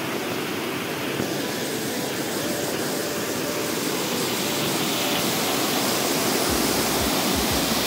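Steady rushing water of a mountain waterfall, an even hiss that grows louder toward the end.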